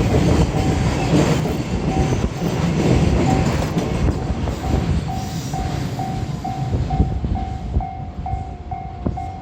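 Freight train wagons rumbling and clattering over the rails at a level crossing, the train noise slowly fading. Through it the crossing's warning bell rings, about two and a half dings a second, standing out more clearly in the second half as the train noise drops.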